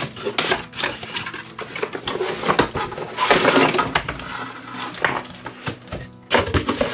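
Cardboard box and packaging being handled: rustling, crinkling and small knocks as parts are taken out and the box is lifted, with a longer rustle about halfway through.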